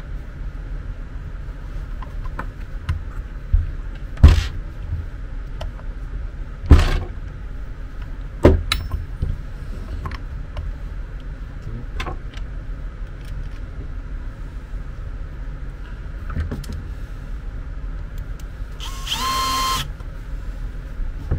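Parts of an electric bed linear actuator being fitted together by hand, giving several sharp knocks. Near the end a cordless drill/driver runs once for about a second.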